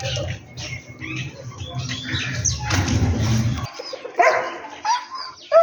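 Sparrows chirping over a low steady rumble that stops suddenly about three and a half seconds in. A dog then barks three times near the end.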